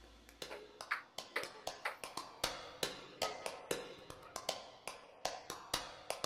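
A steady run of short, sharp clicks or taps, about four a second, starting about half a second in.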